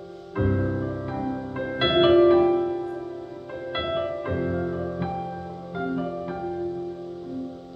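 Digital stage piano playing slow, ringing chords, a new chord struck every second or so and left to fade.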